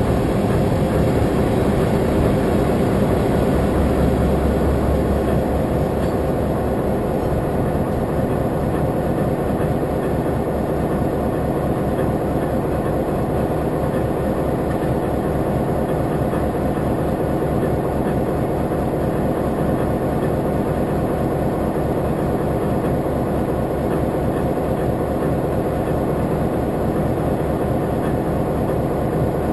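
Diesel locomotive close by. For the first few seconds the train is still creeping along, with wheels clattering on the rails. It then comes to a stand, and the engine idles with a steady low throb.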